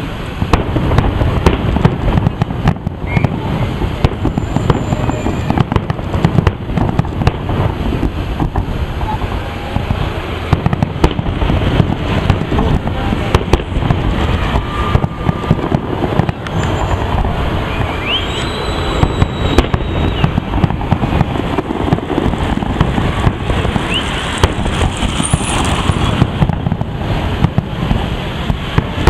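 Aerial firework shells bursting in a dense, continuous barrage of bangs and crackles with no pause.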